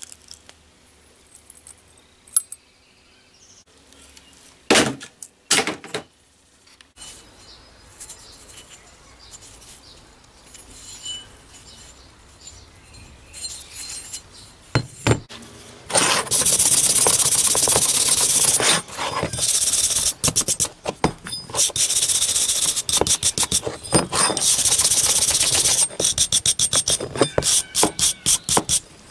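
Hand abrasive work on a hatchet. A few knocks come first. About halfway in there is a long stretch of loud, steady rubbing with short breaks, which turns into quick back-and-forth strokes, several a second, near the end.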